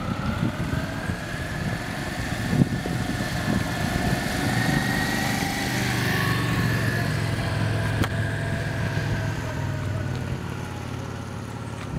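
Motor vehicle engine running close by on the road: a whine that rises slightly to a peak about six seconds in and then eases off, over a steady low hum.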